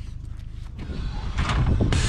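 Subaru Impreza's stock flat-four engine running through a Stromung dual-tip cat-back exhaust, a low steady burble that grows louder from about a second in.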